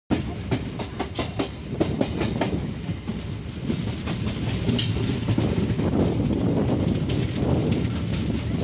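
A passenger train running at speed, heard from on board: a steady rumble of wheels on rails with a clickety-clack, with a quick run of clicks in the first few seconds.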